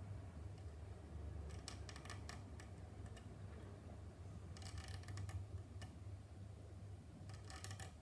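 A hand tool scratching along a plastic model car body in three short bursts of fine, rapid ticks, over a steady low hum.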